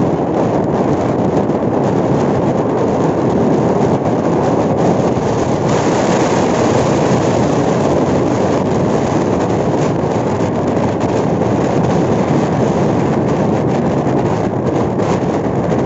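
Wind rushing over the microphone of a moving motorcycle, mixed with its road and engine noise: a steady loud rush, hissier for a few seconds around the middle.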